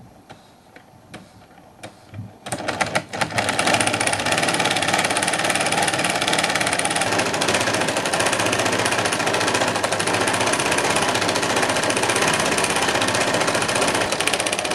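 LEGO Technic film projector's claw film-advance mechanism running: a fast, even clatter of plastic parts jerking the PVC film strip forward. It starts about two and a half seconds in, after a few isolated clicks.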